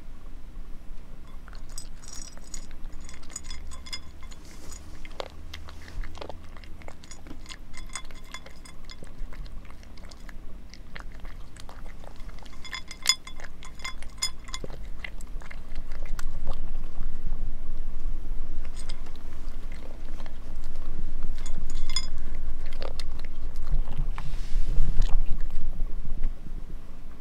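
A cat crunching dry kibble from a ceramic plate, with clusters of sharp crunches and clicks against the plate. A low rumble grows louder in the second half.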